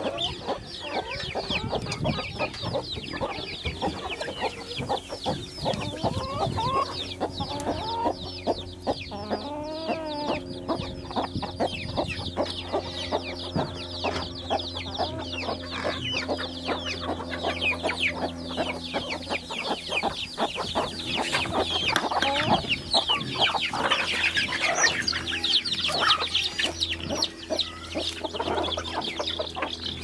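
Free-range hens and chicks clucking and peeping. Dense, rapid, high-pitched chick peeps run over the hens' lower clucks.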